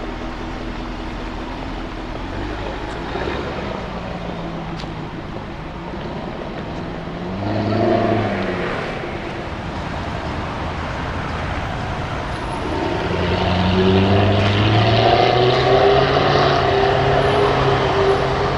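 Jaguar F-Type V8 R's supercharged 5.0-litre V8 over steady street traffic: a short rev that rises and falls about eight seconds in, then from about two-thirds of the way through a louder run whose note climbs and then holds.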